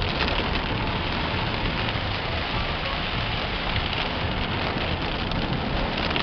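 Heavy rain pouring down steadily: a dense, even hiss of rain with scattered sharp drop hits.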